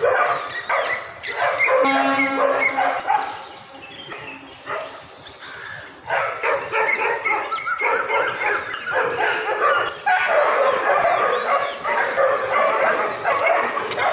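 Several stray dogs barking and yelping all at once as they harass two fighting bulls. The calling eases off for a couple of seconds about four seconds in, then picks up again.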